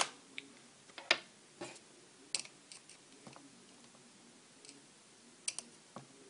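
Irregular small clicks and taps of a flat screwdriver prying at the clips of an iPhone 3G/3GS screen assembly. The sharpest click is at the very start, with another about a second in.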